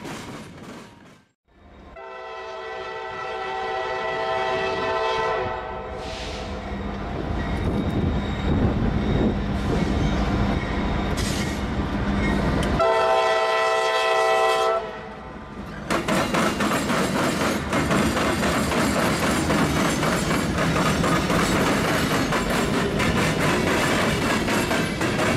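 Diesel freight locomotive sounding its air horn in two blasts, a long one of about three and a half seconds and a shorter one of about two seconds, over the low rumble of its engine as it approaches. From about 16 seconds in, a steady rhythmic clatter of steel wheels as the hopper cars roll past.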